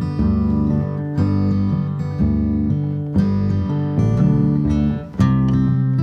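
Background music: acoustic guitar strummed in chords that change about once a second.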